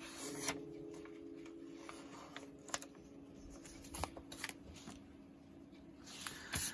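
Paper rustling and light taps as a coloring book page is handled and shifted by hand, with a few scattered soft clicks.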